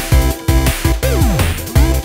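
Electronic background music with a steady, fast beat; about halfway through, a synth sweep dips down in pitch and comes back up.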